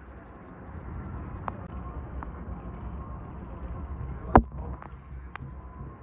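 City street ambience: a steady rumble of traffic, with a sharp knock a little over four seconds in and a couple of fainter ticks earlier.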